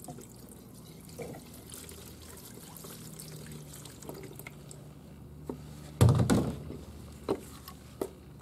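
Solvent being poured and dripping as a dismantled mower gearbox is flushed out of its sludge, over a low steady hum. A loud clatter comes about six seconds in, followed by a couple of sharp clicks.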